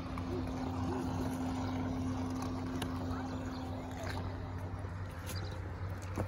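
A motor running steadily, a low even hum with a constant tone that fades away about five seconds in.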